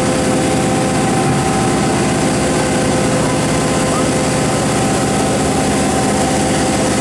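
Komatsu PC4000 mining excavator running steadily: a heavy engine drone with steady whining tones over it, holding constant pitch and level throughout.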